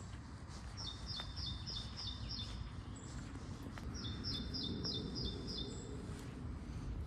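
A songbird singing twice, each time a quick run of about six evenly spaced high notes that each slide down in pitch, with a few thin chips in between, over a steady low outdoor rumble.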